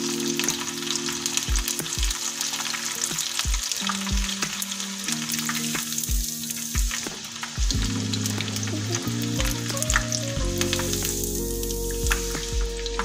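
Peeled garlic cloves deep-frying in hot oil in a kadai, held in a wire-mesh spider strainer: a continuous bubbling sizzle.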